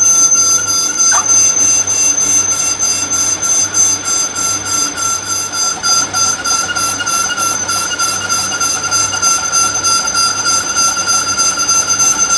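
Metal lathe running with the chuck spinning, giving a steady high-pitched whine with a fast, even ticking, as a tool bit cuts a wooden handle blank.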